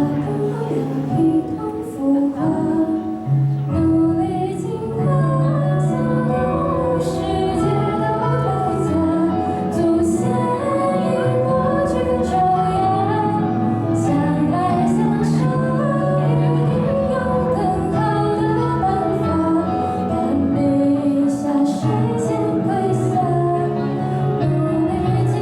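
Music with a woman singing over instrumental accompaniment.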